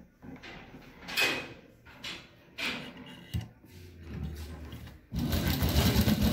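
Cloth rustling as fabric is smoothed and positioned under a sewing machine's presser foot, then about five seconds in the domestic sewing machine starts stitching with a fast, even clatter, the loudest sound.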